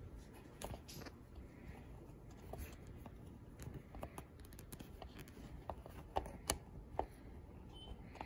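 Scattered small clicks and taps of hard plastic pump parts and rubber tubing being handled as the tubing and its rubber pieces are pushed back into a Roland CJ-500 ink pump. A few sharper clicks come after about six seconds.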